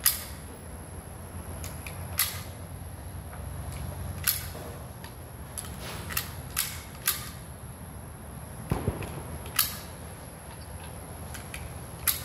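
Sharp, small metallic clicks at irregular intervals, about nine in all, from cartridges being pressed one by one into a rifle magazine, with one duller knock about nine seconds in. A faint steady high whine runs beneath.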